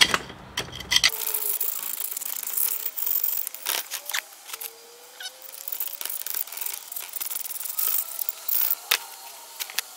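Foundry sand crumbling and grating as a cast iron engine cylinder casting is shifted and pried out of its broken sand mold, with scattered sharp clicks and knocks of tool and sand lumps.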